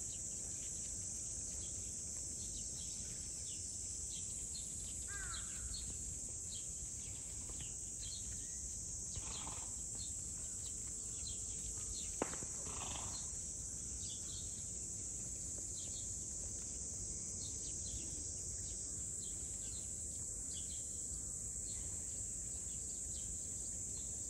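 Outdoor ambience: a steady, high insect drone, with short bird chirps scattered throughout and one sharp click about twelve seconds in.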